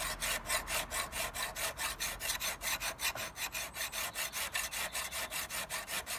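Hand file scraping back and forth along the bevel of a steel Flymo rotary mower blade clamped to a wooden bench, in a steady rhythm of about four strokes a second. The file is sharpening the blade's dull, rounded cutting edge.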